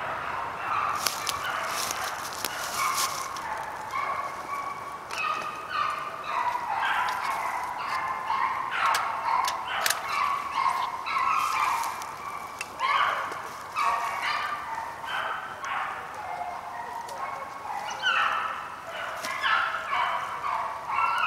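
A pack of deer hounds baying in chase, several voices overlapping, the calls coming thicker and more often from about five seconds in. A few sharp knocks sound in the first couple of seconds.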